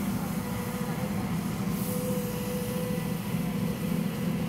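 Diesel engine of a Komatsu PC228US-11 excavator running steadily as a constant low hum, with a brief higher steady tone about two seconds in.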